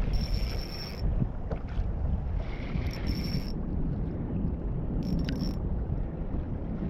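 Wind buffeting the microphone in a steady low rumble. Over it come three short bursts of a high whine from a fishing reel, at the start, about three seconds in and about five seconds in.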